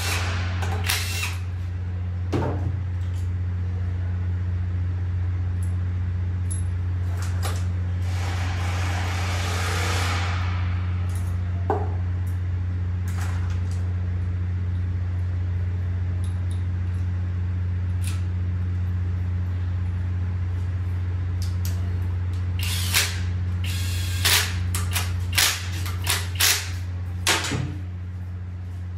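Scattered metal clinks and taps of Toyota 2TR-FE engine parts and hand tools being handled during piston and connecting rod fitting, coming thick and fast near the end. A steady low hum runs underneath, with a short rushing hiss about a third of the way in.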